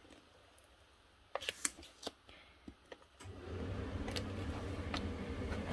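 A few light clicks and crackles from an adhesive tape runner being pressed along a paper card panel. About three seconds in, a steady low motor hum starts and keeps going.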